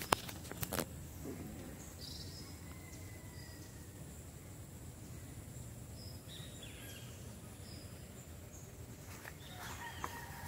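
Outdoor ambience: a thin steady high insect drone and a few short bird chirps over a low steady rumble, with a few sharp clicks in the first second.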